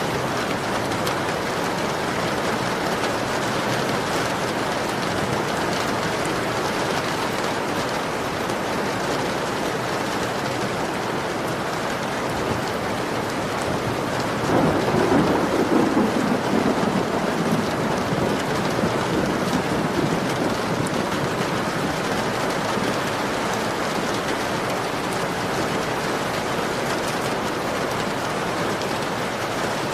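Heavy rain falling steadily, with a roll of thunder breaking in about halfway through and rumbling away over several seconds.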